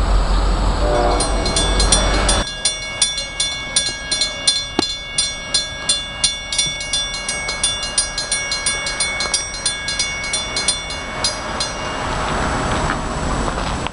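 Railroad grade-crossing warning bell ringing steadily, about two to three strikes a second. For the first couple of seconds it sits over a heavy low rumble that cuts off suddenly. The bell stops near the end as a rushing noise builds.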